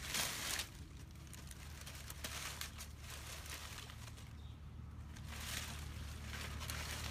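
Dry palm fronds rustling and crackling as they are handled and laid down, with a loud rustle at the very start and more rustling in bursts after it.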